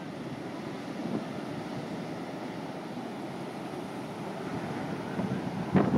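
Heavy hurricane-driven surf breaking steadily, with wind buffeting the microphone. A brief voice cuts in near the end.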